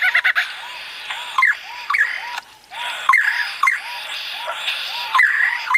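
A bird calling in a rapid, repetitive sequence: short arched whistled notes about three a second, broken every second or so by sharp downward-sweeping notes.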